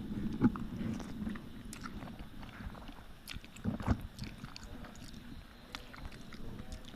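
A person eating Maggi instant noodles: chewing and biting noises with scattered small clicks, and two louder knocks about half a second in and near four seconds.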